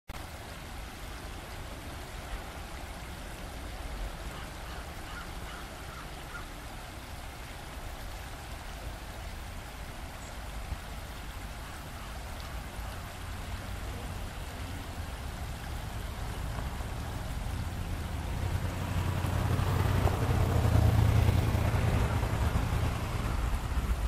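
Shallow river running over a rocky riffle, a steady rush of water. A low rumble swells over the last several seconds, loudest about twenty seconds in.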